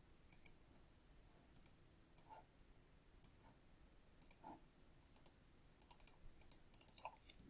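Faint, sharp computer mouse and keyboard clicks: a few single clicks spread apart, then a quick run of clicks near the end, as text is copied and pasted into a document.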